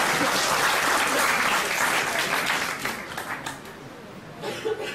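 Audience applauding in a hall, loud at first and dying away after about three seconds into a few scattered claps.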